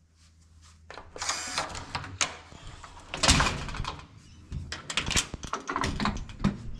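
Handling noises: a busy run of clicks and knocks with rustling and scraping, loudest a little over three seconds in.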